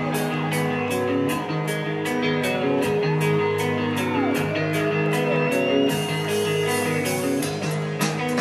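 Amplified rock music: electric guitar chords over an even beat of about three strokes a second.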